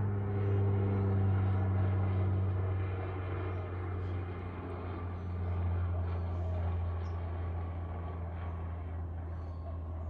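A low, steady drone with a few faint steady tones above it, swelling about a second in and again around six seconds.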